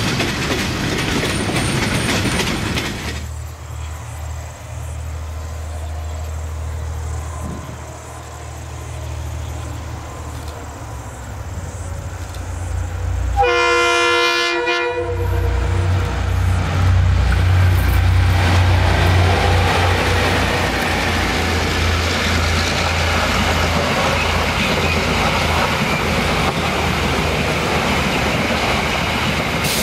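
Freight train hopper wagons roll past with wheel clatter for about three seconds. Then a diesel locomotive approaches with a low rumble, sounds its multi-tone horn once for about a second and a half around halfway, and the passenger train passes close with engine rumble and steady wheel noise on the rails.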